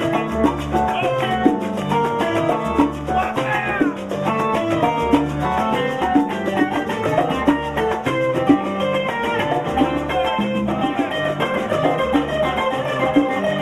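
Cuban son band music: a fast plucked acoustic string lead over a repeating bass line and percussion, with a quick run of rising notes about three seconds in.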